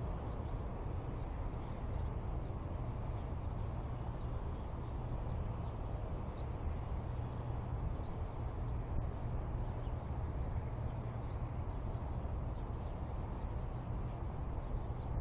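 Steady outdoor background noise: an even low rumble with no distinct events.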